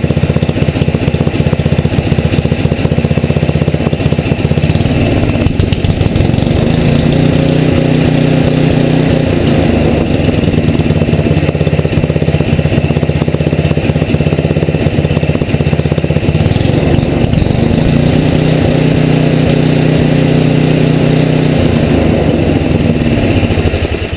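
Tecumseh HM80 single-cylinder four-stroke engine running at low idle while its carburetor's idle mixture needle is adjusted. Its speed picks up about five seconds in, dips briefly and rises again, then falls away right at the end as it is shut down.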